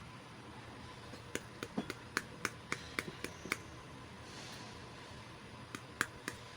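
Small plastic miniature toy pieces clicking and tapping as they are handled by hand. A quick run of about a dozen light clicks is followed by a soft rustle, then a few more clicks near the end.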